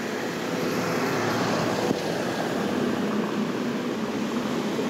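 Steady outdoor city background noise: an even rush with no distinct events.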